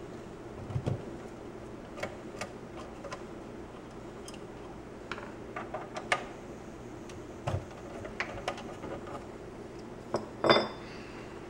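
Scattered small metal clicks and taps of a screwdriver and loose parts as a 1967 International pickup's AM radio is taken apart, with a louder clatter about ten and a half seconds in. A steady low hum runs underneath.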